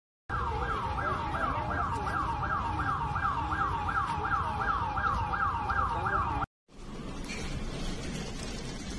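A siren yelping rapidly, about three sweeps a second, over a steady rumbling noise. It cuts off about six and a half seconds in, and a quieter, even noise follows.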